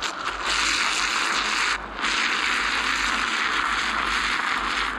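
Small battery-driven motor of a self-stirring mug whirring steadily as it spins the milk and coffee into a vortex. It drops out briefly about two seconds in, then runs on.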